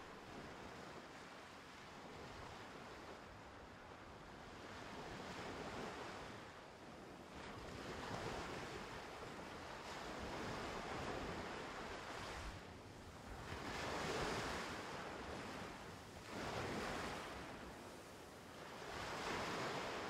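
Sea waves washing in and drawing back: a rushing noise that swells and fades every few seconds, with the swells stronger in the second half.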